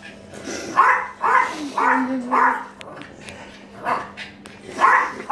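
A small dog giving short, sharp barks: four in quick succession starting about a second in, then two more near the end.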